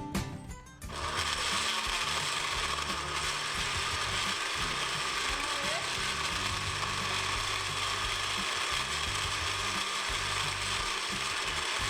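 Countertop blender starting up about a second in and then running steadily, blending a smoothie.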